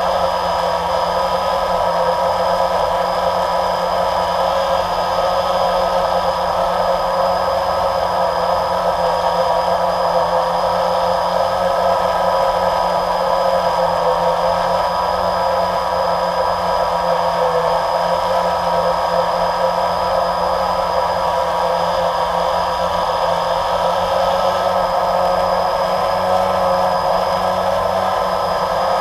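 Motors and propellers of a radio-controlled camera aircraft, heard up close from the camera it carries: a steady whirr with a high whine that wavers slightly in pitch.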